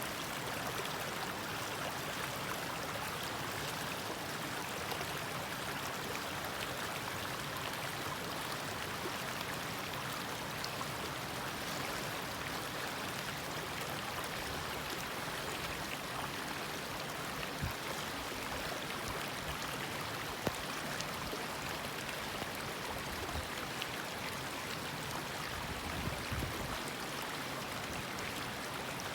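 A stream running: a steady rush of flowing water, with a few brief knocks or splashes about two-thirds of the way through.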